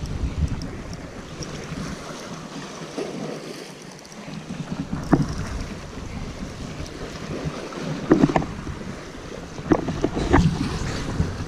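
Sea swell washing against a rock ledge, with wind buffeting the microphone. A few short knocks come in the second half.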